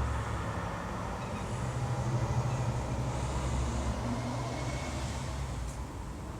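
Road traffic: a large vehicle going past, its low engine rumble swelling a couple of seconds in and then easing away.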